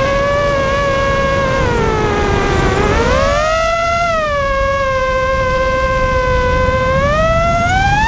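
Brushless motors and propellers of a Vortex 250 Pro racing quadcopter whining as heard from its onboard camera, the pitch following the throttle: it sags about two seconds in, rises sharply around three seconds, holds steady, then climbs again near the end. A low rumble of wind runs underneath.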